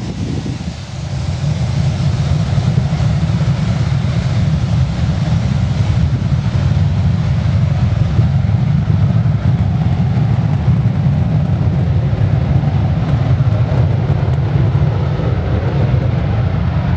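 Boeing 737-200's Pratt & Whitney JT8D turbofan engines running at takeoff power: a loud, steady, deep rumble that swells about a second in and then holds.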